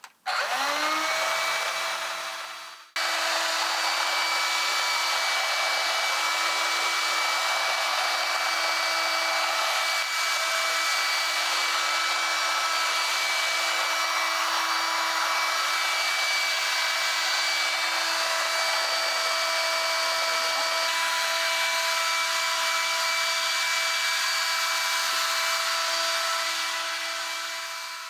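Medion MD18418W 2-in-1 cordless vacuum cleaner's motor starting with a rising whine, then running steadily with a high whine over a rush of air. There is a short break about three seconds in, and the sound fades near the end.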